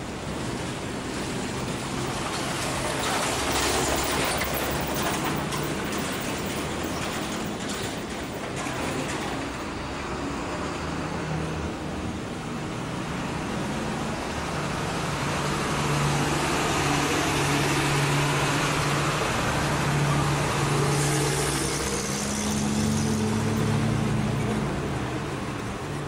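Street traffic: road vehicles passing, with a low engine hum that grows louder a little past halfway through.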